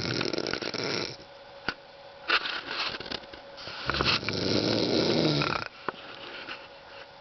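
A woman snoring in her sleep: a breathy snore at the start, then a longer, louder snore with a low vibration from about three and a half seconds in, lasting about two seconds.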